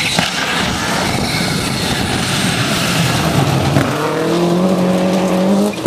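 Subaru Impreza rally car driven hard on a gravel stage: the engine runs at high revs under a dense wash of gravel and dirt noise from the tyres. About four seconds in, the engine settles into a steady held note.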